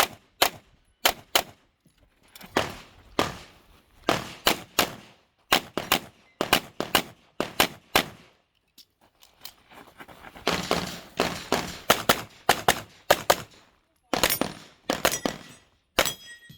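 Handgun shots fired in quick pairs and short strings during an IPSC stage, with brief pauses between the groups.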